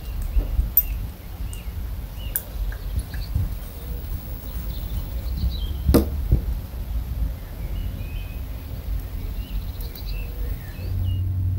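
Outdoor rumble of wind on the microphone with small birds chirping throughout, and a sharp knock about six seconds in as the horse crosses the wooden cavaletti poles, a hoof striking a pole. A steady low hum comes in near the end.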